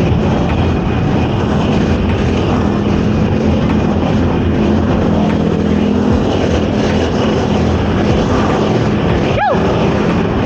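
Loud, steady road traffic: motor vehicle engines humming and tyre noise. Near the end comes one short, sharply falling tone.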